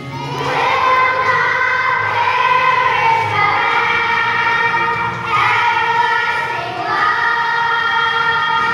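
Young children's choir singing together, holding long notes, with new phrases beginning about five and seven seconds in.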